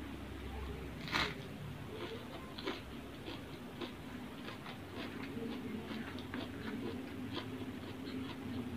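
Close-up eating sounds: a crisp crunch of a bite of raw cabbage leaf about a second in, then mouth chewing with many small wet clicks and smacks, and fingers scooping rice off a paper wrapping.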